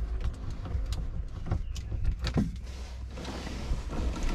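A few light clicks and a knock from a Torx socket ratchet and the roof bolts being worked and handled, over a steady low rumble.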